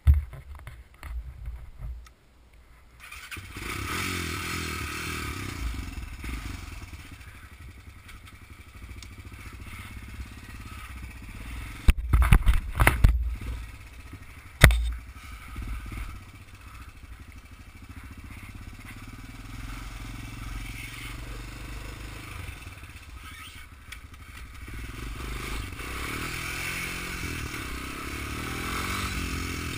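Honda 250EX quad's single-cylinder four-stroke engine starting about three seconds in, then idling and running as the ATV rides off, with a few loud knocks around the middle. It revs higher near the end.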